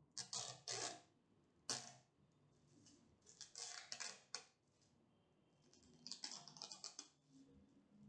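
Thin protective plastic film being picked at and peeled off the top of a plastic digital kitchen scale, crinkling and crackling in several short bursts.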